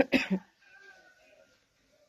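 A person coughing: two quick coughs near the start.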